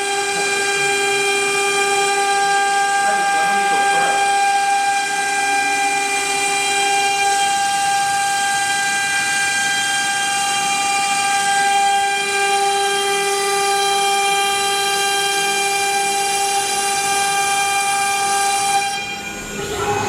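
CNC wood router spindle running with a steady high-pitched whine as the machine works. The sound dips briefly near the end.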